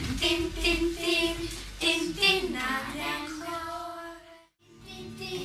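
Children singing a song, with the singing broken off for a moment by a short gap about four and a half seconds in before it resumes.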